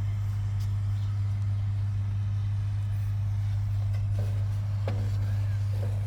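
Steady low hum, with a few faint knocks and a faint short chirp about five seconds in.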